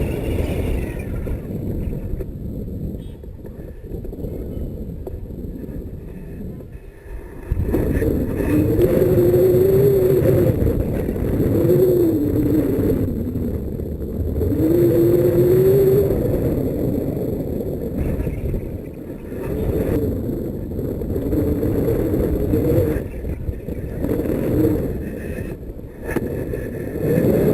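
Wind rushing and buffeting over the microphone in flight. From about eight seconds in, a wavering tone rises and falls in pitch over the noise.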